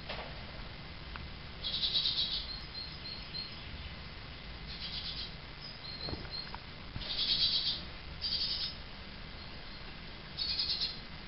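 Great tit fledglings chirping: five bursts of rapid high calls, each about half a second long, with short single chirps between them.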